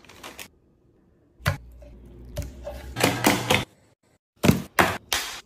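A series of short, sharp knocks and clacks from handling in the kitchen, the quickest run of four coming about a second apart near the end.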